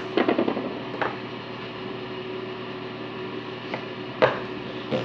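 Handling sounds as slime is put into a container of mint water: a quick patter of small clicks at the start, then a knock about a second in and a sharper knock near the end. A faint steady hum runs underneath.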